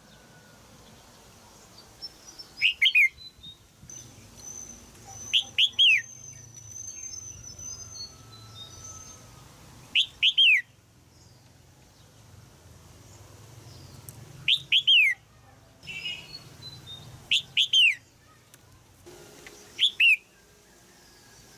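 Female red-whiskered bulbul giving sharp 'jiak' calls. She calls in short bursts of two or three quick notes that slide downward, about six bursts a few seconds apart.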